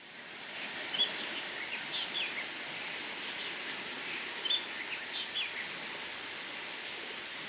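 Birds calling in two short bursts of high, downward-sliding chirps, about a second in and again past the middle, over a steady wash of sea waves.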